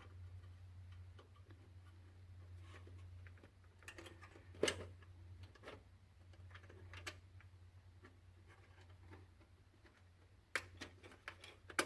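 Scattered light clicks and knocks of an optical drive being slid into a PC case's front drive bay and latched with tool-less sliding pins. There is one sharper click a little before halfway and a quick cluster of clicks near the end, over a faint steady low hum.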